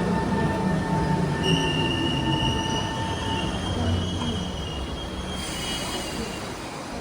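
Kawasaki Heavy Industries–Nippon Sharyo C151 metro train slowing into a station. The traction motor whine falls in pitch as it brakes, and about a second and a half in a high-pitched squeal sets in. Near the end there is a sudden hiss.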